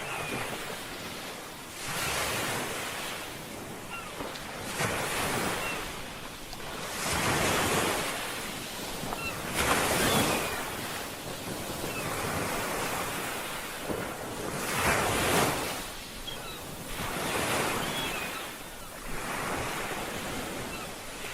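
Ocean waves breaking and washing in, rising and falling in swells every two to three seconds, with wind.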